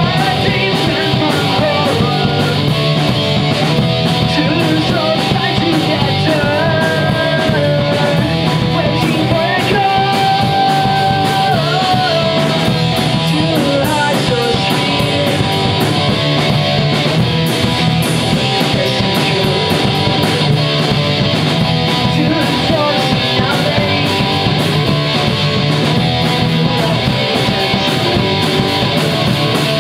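Pop-punk band playing live: electric guitars, bass guitar and drums, with a male lead singer. The singing is clearest in the first half.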